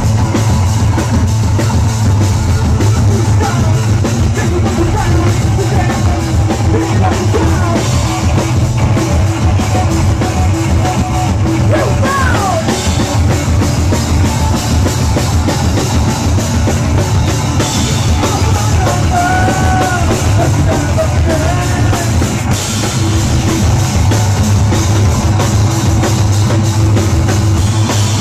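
Rock band playing a song live, loud, with the drum kit prominent over the amplified instruments.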